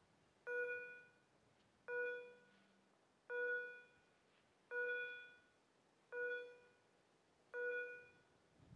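Railway level crossing warning bell ringing, one bright ding about every second and a half (six strokes), each fading quickly: the crossing signal is active, warning of an approaching train.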